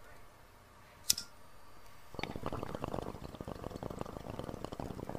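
A sharp click about a second in, then a steady, dense bubbling of liquid from about two seconds in.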